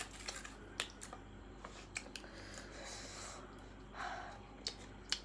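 Faint mouth and eating sounds: chewing and lip smacks with a few sharp clicks, and a short breath or sniff about four seconds in.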